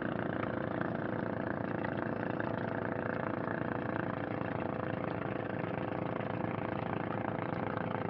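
Engine of a motorized bangka (Philippine outrigger boat) running steadily: a continuous noisy drone with a few level tones that hold steady throughout.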